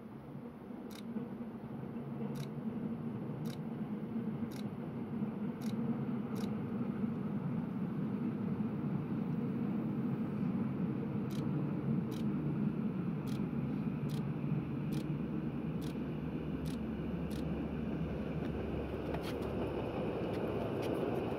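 Rhaetian Railway train running, growing louder over the first several seconds and then holding steady, with faint regular clicks about once a second that come faster in the second half.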